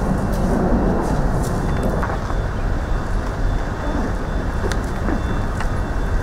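Road traffic noise: a steady low rumble, with a few faint clicks.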